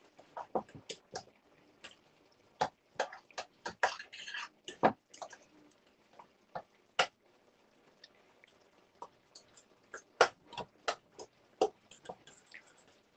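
A spoon clinking and scraping against a metal pot as rice is stirred and fluffed. The sharp knocks come irregularly, some in quick runs and a few louder single taps, with a sparser stretch near the middle.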